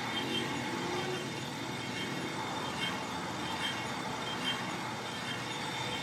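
Steady mechanical workshop noise from machinery running, an even rumble and hiss with faint short high ticks recurring through it.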